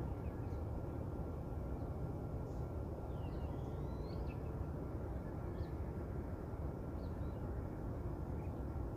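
Scattered short bird chirps and whistles, including a longer rising-and-falling whistle about three to four seconds in, over a steady low rumble.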